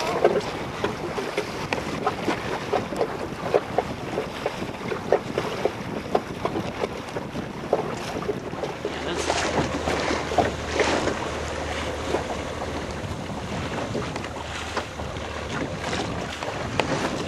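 Small waves slapping and splashing against a small boat's hull while under way, with many short splashes, over wind blowing across the microphone.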